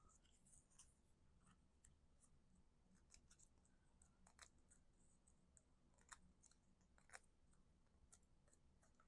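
Near silence, with scattered faint clicks and light rustles of card stock being handled.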